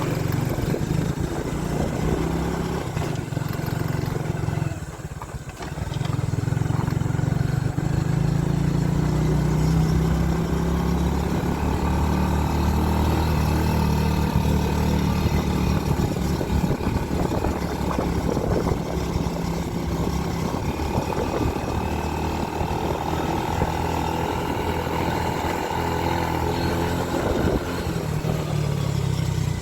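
Motorcycle engine running steadily while riding, dipping briefly about five seconds in. A higher whine comes in from about twelve seconds and fades out near the end.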